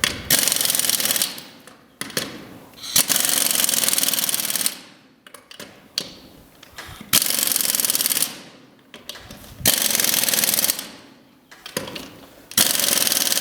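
Impact wrench running lug nuts onto wheel spacer studs in five short rattling bursts, each about a second long, with pauses of a couple of seconds between them.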